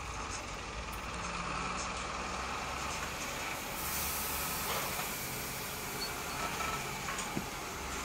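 Pellets pouring in a steady stream from a model silo chute into a plastic toy trailer, a continuous rushing hiss that grows brighter about halfway through, over a low steady hum.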